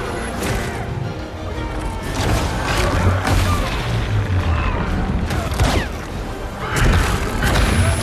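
Film battle sound mix: dramatic music under repeated explosions, crashing impacts and bursts of weapon fire, with a heavy low rumble throughout.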